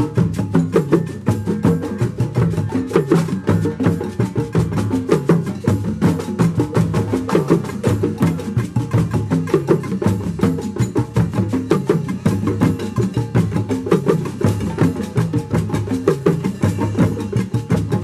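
Drum circle percussion: hand drums such as djembes, a drum kit, and mallets striking drum heads and cowbells together in a dense, steady rhythm without a break.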